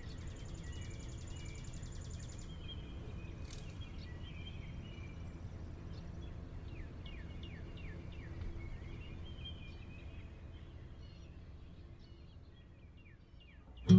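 Outdoor ambience: small birds chirping and calling over a steady low rumble, with a buzzy trill in the first couple of seconds and a few high, falling whistles. It fades away near the end.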